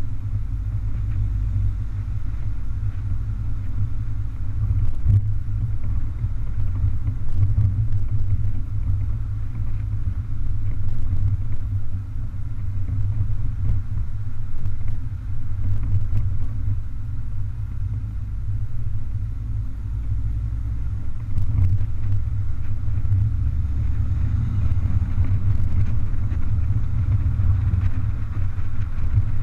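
BMW 420 convertible driving with its top down: a steady low rumble of engine, road and wind noise that rises and falls slightly with the drive.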